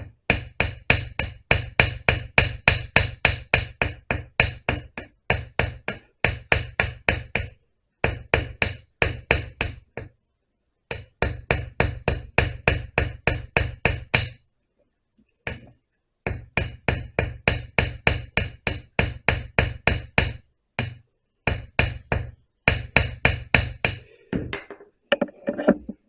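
Ball peen hammer tapping on a chainsaw chain rivet to peen its head over, in quick even runs of about three to four ringing metallic blows a second, with short pauses between the runs.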